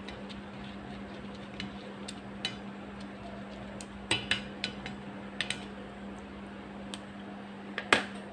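A plastic spoon tapping and scraping against a metal tray of glutinous rice and coconut milk: scattered light clicks, the loudest near the end. A steady low hum runs underneath.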